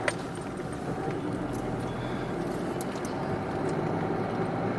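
Steady engine and road noise of a car heard from inside the cabin while driving, with a short click right at the start.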